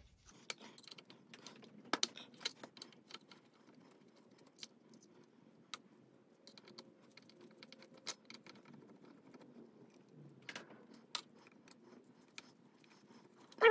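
Light metallic clicks and clinks of a hand screwdriver and small screws being worked out of a Honda ATC90 engine, scattered irregularly, with a brief louder clatter at the very end.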